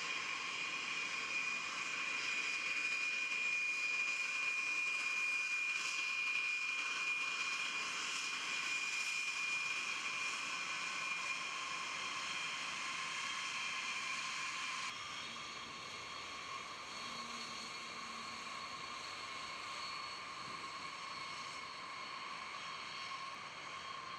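B-52H bombers' TF33 turbofan jet engines running at takeoff power: a steady jet whine with two high tones over a rushing noise. The sound steps down slightly and changes about fifteen seconds in.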